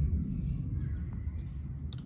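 Low rumbling background noise with faint bird chirps, and a single sharp click near the end.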